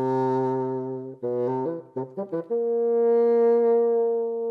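Bassoon playing a slow melodic phrase: a long low note, then a few short notes, then a long held note about an octave higher.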